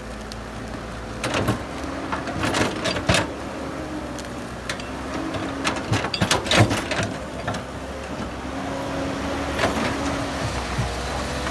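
Heavy diesel earthmoving machinery running steadily, with a cluster of sharp clanks and knocks from about a second in to past the middle, and a few more near the end.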